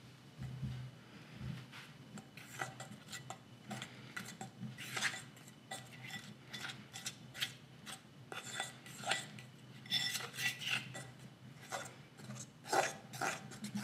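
A metal fork stirring a thick powdered-sugar glaze in a deep ceramic bowl. The tines make irregular scrapes and clinks against the bowl.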